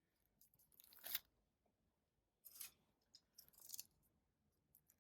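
Plastic 4K Blu-ray case being handled, giving a few brief rustles and clicks.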